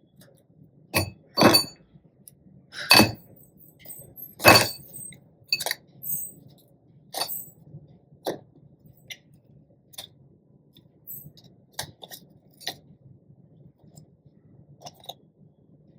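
Food being packed into a storage container in the kitchen: a string of irregular clinks and taps from the container and utensils. The clinks are loudest in the first few seconds and grow sparser and softer after that.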